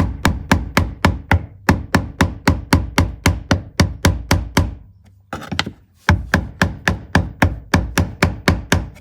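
Background music with a steady beat: sharp, evenly spaced hits about four a second over a deep bass line, which drops out for about a second past the middle and then comes back in.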